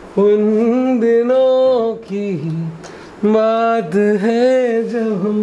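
A man singing a melody loudly in two long sustained phrases, with a short lower phrase between them and smooth glides between notes.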